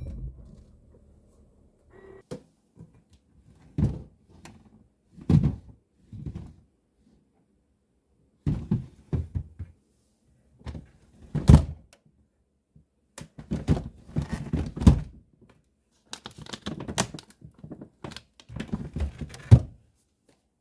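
Irregular dull thunks and knocks, with some rustling between them, as items and paper file boxes are handled and set down in a refrigerator drawer.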